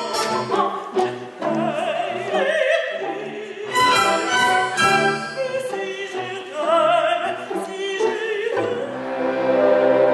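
Operatic singing with a wide vibrato over a live orchestra. About two-thirds of the way through the voice stops, and the orchestra's strings hold a steady sustained chord.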